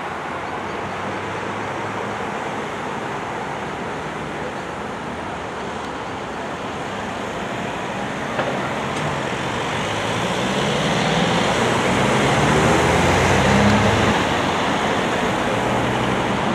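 Steady road traffic noise from a busy main road. In the second half a vehicle engine grows louder and passes close by, loudest about three-quarters of the way through.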